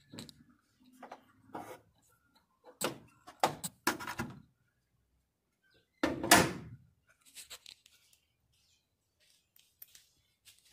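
Hood of a Volkswagen Jetta Mk3 being lowered: a few knocks and clicks as it is handled, then one loud slam as it shuts about six seconds in, followed by a few faint clicks.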